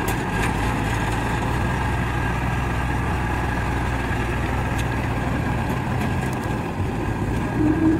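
Small engine of a rice-hauling cart running steadily with an even low hum.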